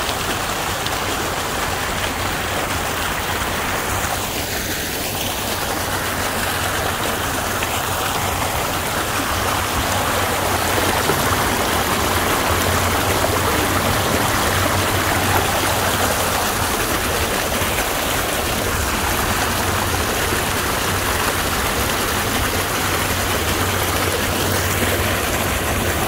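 Lake outflow water rushing steadily through a corrugated drain pipe and gushing out of its mouth over rocks. The pipe is flowing freely now that a beaver dam clogging it has been dug out.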